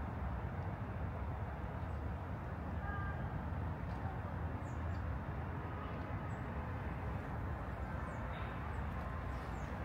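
Steady low hum of distant city traffic, with faint, brief bird chirps now and then.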